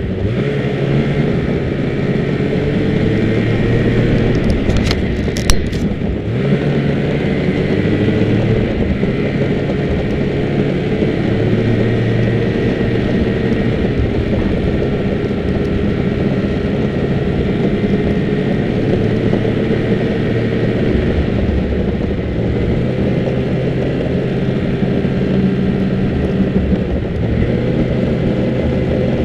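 Snowmobile engine running under way, its pitch slowly rising and falling with the throttle. A few sharp knocks come about five seconds in, the loudest about five and a half seconds in.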